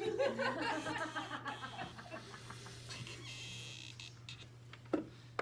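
Laughter: a quick run of short ha-ha pulses that fades out after about two seconds, over a steady low hum. Two sharp knocks come near the end.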